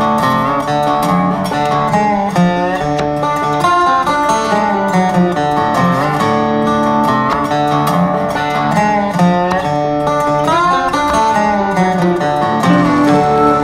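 Background music with plucked strings, in a country style, playing steadily throughout.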